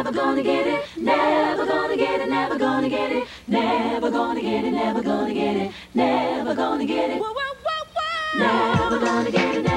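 Music: a group of voices singing in harmony, in phrases a second or two long, with a beat coming in near the end.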